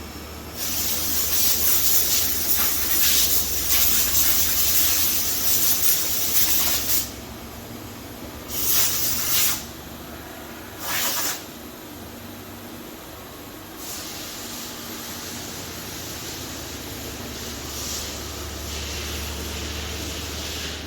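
Hissing jets inside a Nakamura-Tome WT 150 CNC lathe: one long burst of about six seconds, then two short bursts, then a quieter steady hiss, over the machine's steady low hum.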